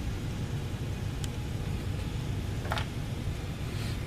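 Steady low rumble with a few short, light clicks and taps, one stronger than the others near the end, as parts of a tankless water heater are handled during disassembly.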